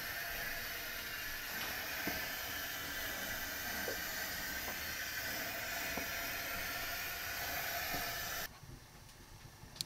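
Burgers sizzling in a pan over a gas burner: a steady frying hiss with a few small pops, cutting off suddenly near the end, followed by a single sharp click.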